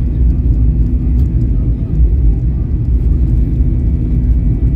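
Jet airliner in its take-off roll heard from inside the cabin: a loud, steady low rumble of the engines and wheels on the runway.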